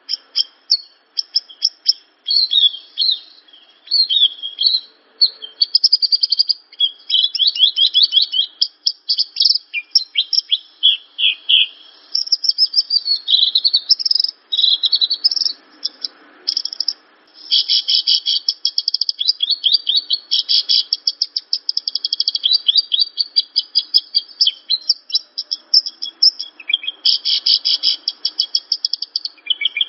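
Javan bushlark (branjangan) singing a long, fast, varied song of rapid chirps and trills, with runs of quickly repeated notes broken by short pauses.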